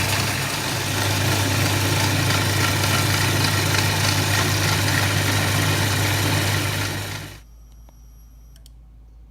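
CNC milling machine running steadily, a low hum under a broad hiss, then shutting down about seven seconds in as the milling job ends.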